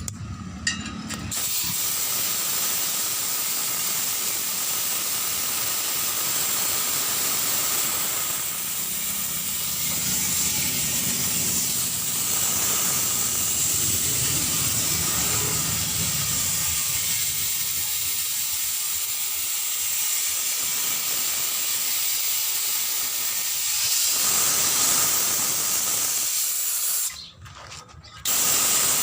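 Steady hiss of compressed air, which cuts out for about a second near the end and then resumes.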